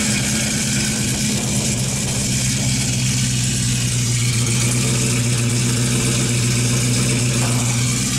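1968 Chevrolet Camaro's LS3 V8 idling steadily, freshly started.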